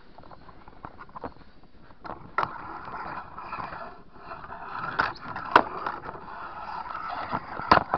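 Handling noise from a camera being carried and moved about: rubbing and scraping, with a few sharp knocks, the loudest about five and a half seconds in and near the end.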